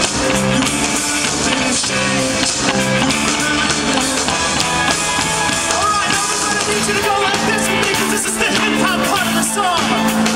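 A rock band playing live: electric guitar and drum kit with a man singing over them.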